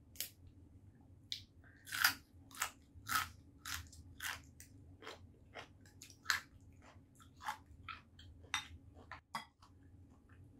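Close-up crunching and chewing of raw yardlong beans (Thai long beans): a crisp snap-crunch every half second or so.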